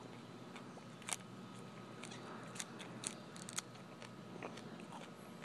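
Person chewing a mouthful of raw dandelion leaf: faint, crisp crunches with a few irregular sharp clicks.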